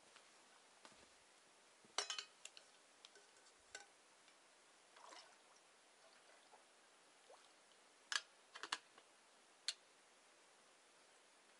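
Faint clinks of a small camping pot being handled, with a soft splash of lake water as it is dipped and filled at the shore. A few sharp clinks come about two seconds in, and another group comes between eight and ten seconds in.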